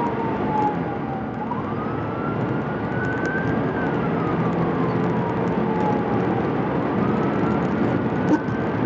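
Police siren wailing in a slow rise and fall, sweeping between a low and a high pitch about twice, over steady road and engine noise.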